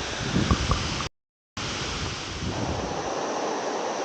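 Steady rush of a jungle river and waterfall. In the first second, wind buffets the microphone with low rumbles. The sound cuts out completely for half a second about a second in, then the water resumes.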